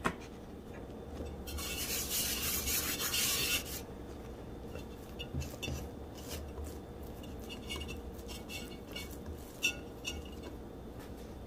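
A hand rubbing and turning a ball of bread dough in an oiled enamel bowl: a soft rubbing sound for about two seconds, then faint light taps and scrapes against the bowl.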